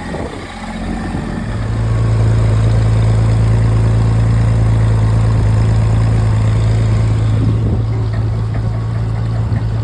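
Tractor engine running steadily at idle, a low even drone that grows louder about a second and a half in and then holds steady.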